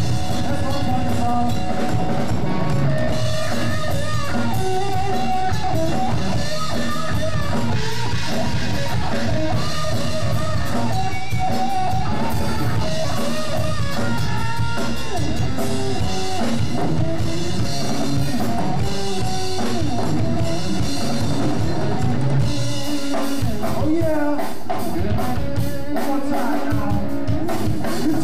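Live rock band playing loud and without pause: electric guitar, electric bass and a drum kit.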